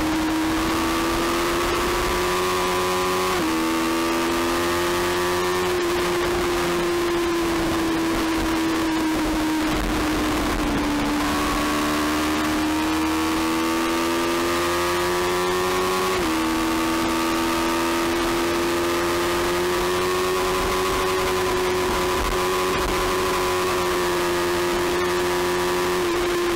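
A 300 Supersport-class racing motorcycle's engine at high revs under hard throttle, with wind noise over the microphone. The pitch changes suddenly about three seconds in and again about sixteen seconds in as gears change, and dips and rises again around ten seconds in.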